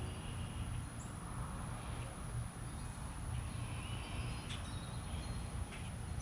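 Steady low background hum with faint high chirps and a few light clicks, the sharpest about four and a half seconds in.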